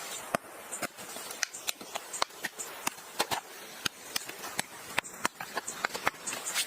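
A rapid, irregular series of sharp clicks and snaps, several a second, over a faint outdoor background.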